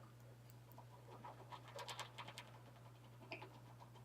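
A hamster gnawing on the metal bars of its cage: faint, irregular clicking and scraping, densest in the middle, with one sharper click near the end.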